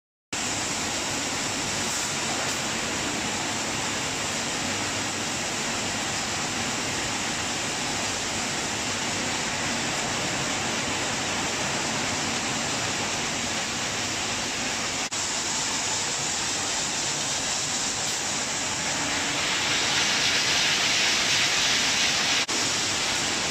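Steady, even noise of running factory conveyor and packaging-line machinery, with no distinct rhythm or tone. It grows louder about twenty seconds in.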